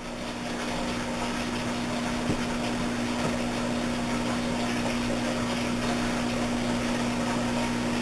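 A motor-driven appliance running steadily: an even rushing noise with a constant low hum, swelling up over the first second and then holding level.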